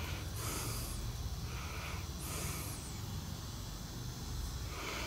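Close breathing, a soft hissy breath about every two seconds over a low steady hum.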